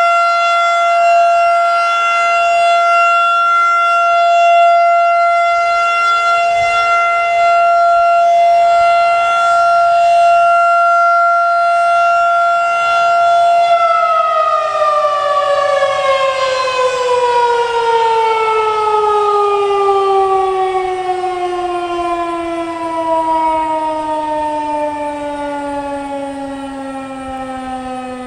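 Federal Signal 2001-SRN outdoor warning siren sounding a steady alert tone. About halfway through it shuts off and winds down, its pitch falling steadily and the sound fading.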